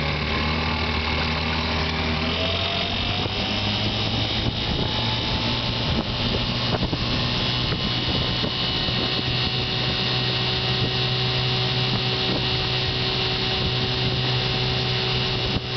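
1958 Johnson 5.5 hp two-cylinder two-stroke outboard motor running quietly. Its speed picks up over the first couple of seconds, then holds steady. It has just been serviced with new coils, a carb kit and a new water pump impeller.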